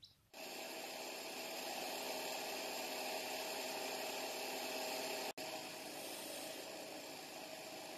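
A hand-held cutting torch cutting through the steel shell of a tank: a steady hiss that breaks for an instant about five seconds in.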